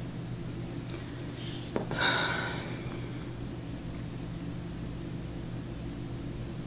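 A person sitting quietly takes one short, audible breath about two seconds in, just after a small click. The breath is heard over a steady low hum of room tone.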